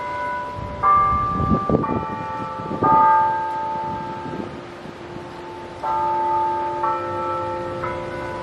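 Tower bells chiming the hour: a run of four notes about a second apart, each ringing on, then a pause of about two seconds before the next run of notes begins.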